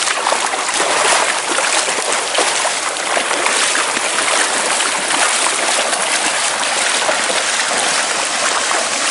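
Steady rush of running river water, with scattered splashing as a cast net full of fish is dragged through the shallows by a man wading.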